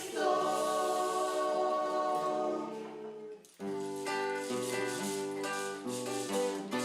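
Music: a long held chord that slowly fades, then after a short break a run of changing notes in a steady rhythm.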